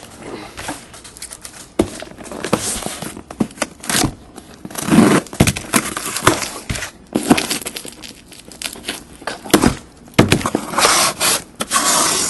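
Cardboard case and its packing being handled and opened: irregular crinkling, scraping and tearing noises with a few sharp knocks.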